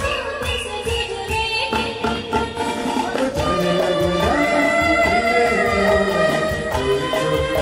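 A man and a woman singing a Hindi film song duet live with a small band: held, wavering vocal lines over a steady beat of hand percussion.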